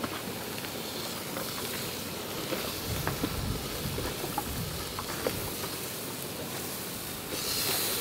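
Marinated squid sizzling on a hot barbecue grill over open flames, with light clicks of metal tongs. The sizzle swells louder near the end as the pieces are moved on the grill.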